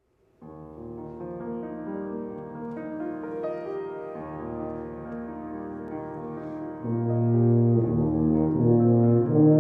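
A grand piano begins a slow introduction of sustained chords and melody about half a second in. Around seven seconds in, a tuba enters with loud, low, held notes over the piano.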